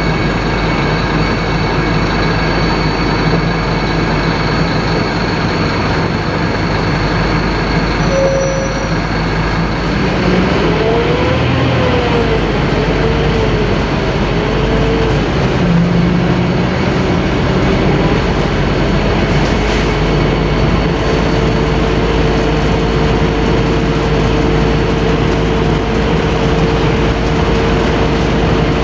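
Scania K-310IA bus's five-cylinder inline turbodiesel engine running loudly under way, with steady road and running noise. A wavering whine comes in about ten seconds in, and from about sixteen seconds on a steady whine rises slowly in pitch.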